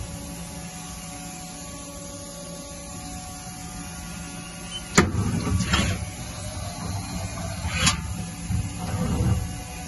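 Haas OM-2A vertical machining center's automatic tool changer cycling. A steady machine hum runs for the first half, then a sharp clack about halfway, a few seconds of whirring motion, and a second clack near the end.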